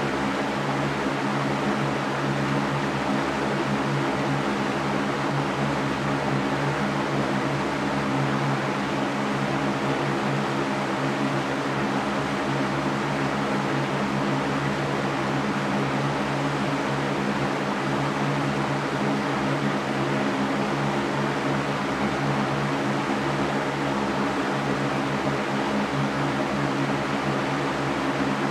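Electric fan running steadily: an even rush of moving air over a low, constant motor hum.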